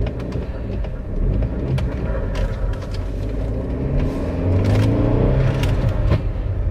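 A 2007 Audi A4 2.0T's turbocharged four-cylinder engine pulling the car along, heard from inside the cabin, its note rising and getting louder about four seconds in as it accelerates.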